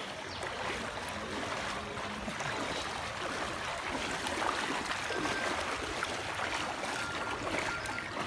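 Floodwater sloshing and splashing steadily as people wade through it.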